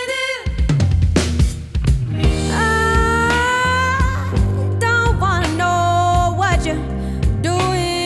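Background music: a song with a sung vocal line of held, wavering notes over drums and bass.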